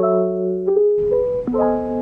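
Background piano music, with sustained notes and chords changing every half second or so.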